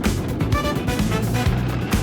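Background music with a steady drum beat and a melody of short notes.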